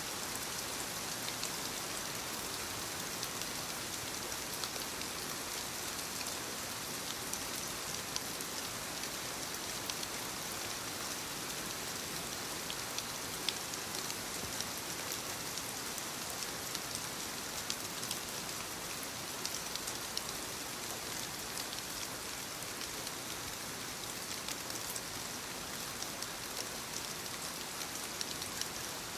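Soft steady rain falling on leaves: an even hiss with many small, separate drop taps scattered through it.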